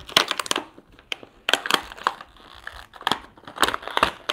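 Clear plastic blister packaging crackling and crinkling as it is pried and pulled open by hand, in several short bouts of sharp crackles.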